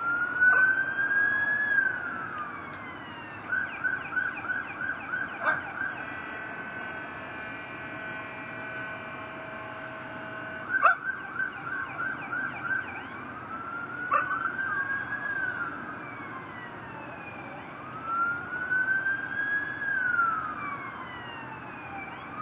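Emergency vehicle siren going through its modes: a slow rising-and-falling wail, rapid yelping bursts, and a steady held tone in the middle. A few short sharp sounds cut in, the loudest about eleven seconds in.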